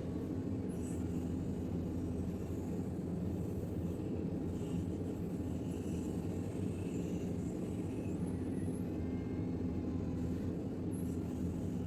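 JCB 3DX backhoe loader's diesel engine running steadily with a low, even drone.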